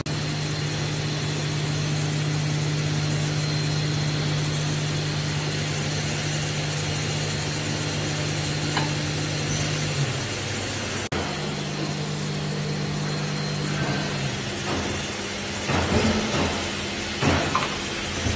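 Steady hum and hiss of a CNC machining centre and its equipment, which drops out for an instant about eleven seconds in. Near the end come a few short metal clunks as the cobot's grippers handle parts in the machine's fixture.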